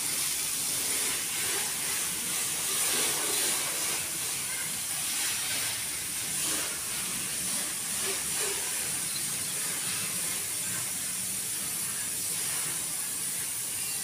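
Water spraying at a car wash, a steady hiss that swells and eases a little.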